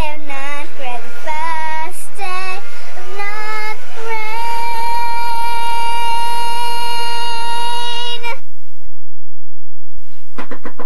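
A girl singing a made-up tune with words the recogniser did not catch, her pitch wavering, then holding one long steady note for about four seconds that cuts off suddenly.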